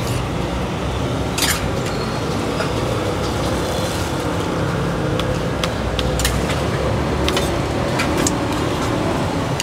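Steady street traffic noise, with a few light clinks scattered through.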